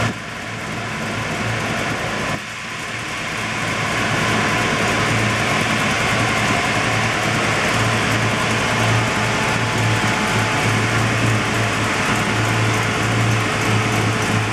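1956 Chevrolet Bel Air's engine idling steadily.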